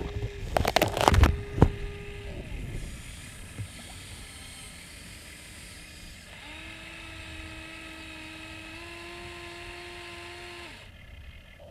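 Electric motors of a Huina RC excavator whining steadily as its boom and arm move, the pitch stepping up slightly partway through. A burst of sharp clattering knocks comes in the first two seconds.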